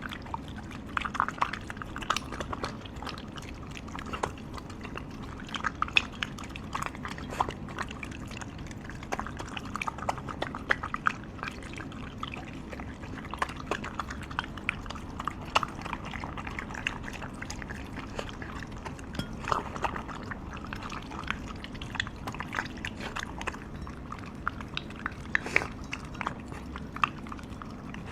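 A Shiba Inu eating homemade wet dog food from a bowl: irregular wet chewing and lapping with many small clicks of teeth and tongue.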